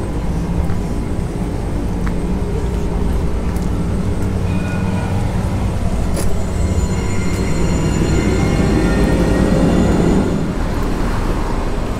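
Electric light rail tram, its low steady motor hum joined about halfway through by high whining tones, with a louder rumble swelling near the end as the train moves.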